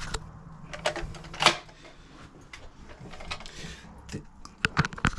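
Hard plastic clicks and knocks from a plastic cistern flush valve being handled and brought to the open cistern for refitting. One sharper knock comes about a second and a half in, and a quick run of clicks near the end.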